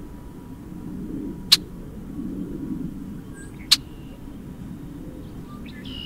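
Outdoor field-recording background from a red-winged blackbird recording, heard between the bird's songs: a low steady rumble with a faint hum, broken by two sharp clicks about two seconds apart. The next song starts right at the end.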